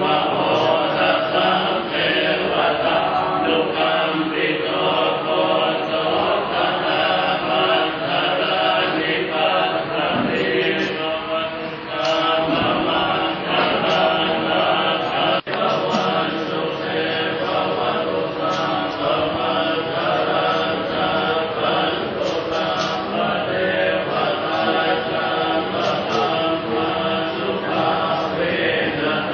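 Thai Buddhist monks chanting a blessing together, many voices in a steady unbroken chant.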